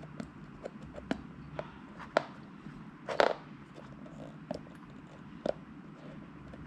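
Scattered light clicks and taps from fingers handling a dive watch on a wooden table, with one slightly longer rustle about three seconds in.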